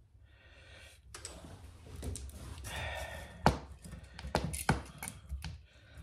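Hands working stiff electrical wires at an outlet box: faint scraping and rustling, with several sharp clicks and taps in the second half.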